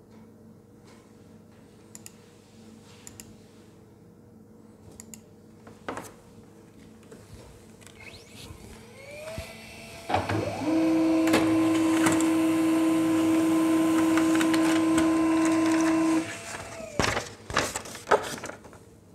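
HP Laser MFP 135wr laser printer printing a page. About nine seconds in, its motors spin up with a rising whine, then run as a loud, steady multi-tone hum for about six seconds before stopping abruptly. Paper rustles as the printed sheet is taken out.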